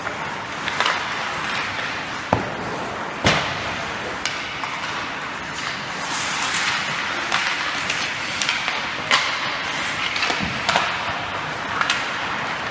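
Ice hockey play: skates scraping on the ice under a steady hiss, with scattered sharp clacks of sticks and puck, the loudest about three seconds in.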